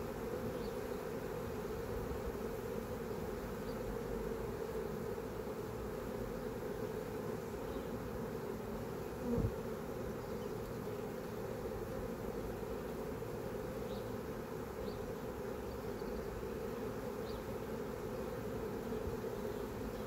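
A swarm of honeybees buzzing steadily as they fly around and walk into a swarm box, with one brief low bump about halfway through.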